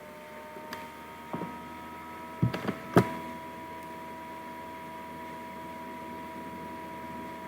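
A steady electrical hum made of several thin, even tones, with a few sharp clicks in the first three seconds, the loudest about three seconds in.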